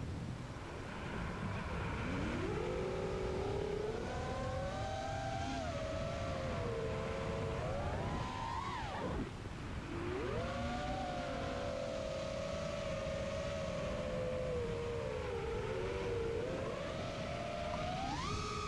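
FPV quadcopter's brushless motors and 5-inch propellers whining, the pitch rising and falling with the throttle: a climb about two seconds in, a sharp rise and sudden drop around the middle, and another climb near the end. Wind rumbles on the onboard microphone underneath.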